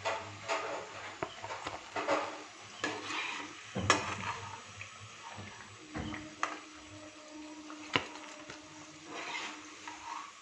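Steel slotted spoon scraping and knocking against a kadai as cutlets are lifted out of hot deep-frying oil, with the oil sizzling underneath. The strokes come in an irregular series, the sharpest about four seconds in and again near eight seconds.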